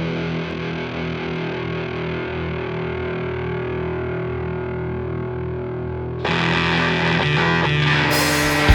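Psychedelic stoner rock intro: distorted electric guitar through effects holding sustained droning notes. About six seconds in, a brighter, louder layer joins and the sound fills out.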